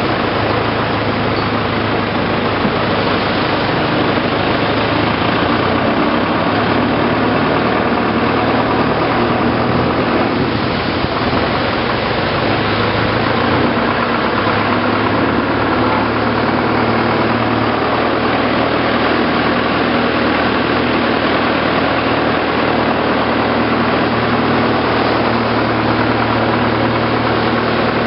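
Long-tail boat's engine running steadily under way, heard from aboard as a loud, unbroken drone.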